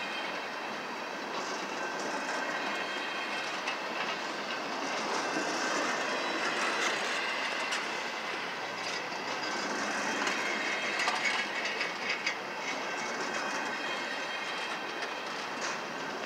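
Double-stack intermodal well cars of a freight train rolling past at steady speed, the wheels clattering over the rail joints and grade crossing in irregular clicks.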